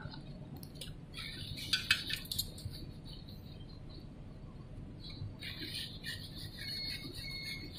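Faint, scattered scrapes and light clicks of a wooden float working wet concrete around the base of a steel rebar column cage, in two clusters, about a second in and again past the middle.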